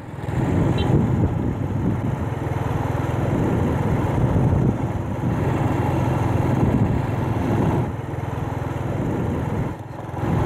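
Motor vehicle engine running close by in street traffic. It comes in suddenly just after the start, stays loud and steady, and dips briefly near the end.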